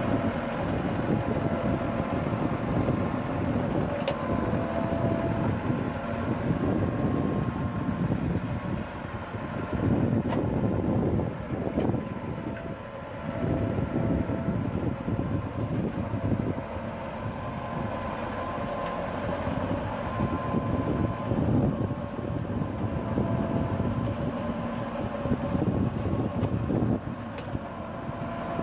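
Massey Ferguson 385 tractor's four-cylinder diesel engine running steadily while it powers the rear backhoe digging sandy soil, its level wavering as the hydraulics work.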